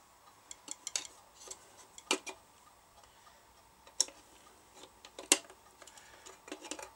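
Irregular light clicks and taps of metal on metal as the BSR deck's toothed auto-mechanism cam wheel is pressed and turned by hand on the centre spindle. The wheel does not seat.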